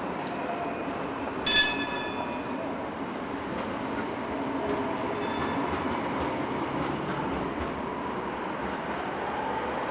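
Steady rumble of city traffic, with a brief high-pitched squeal about one and a half seconds in and a fainter one about five seconds in.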